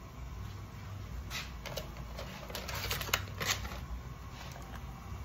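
Light, irregular clicks and knocks from handling things in a kitchen, bunched between about one and three and a half seconds in, over a low steady hum.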